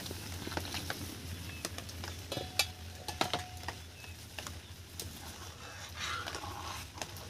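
Milk heating in a kadai on a stove as it comes up to the boil: a steady low hiss with scattered light clicks and taps.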